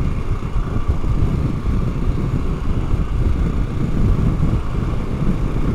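Wind rumbling and buffeting the microphone over the running engine of a Harley-Davidson Pan America Special motorcycle cruising steadily at about 50 mph, a good bit of wind noise.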